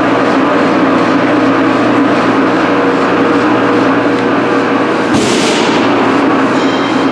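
Powder coating booth in operation: a steady loud drone of fans and rushing air, with a brief sharp hiss of air about five seconds in.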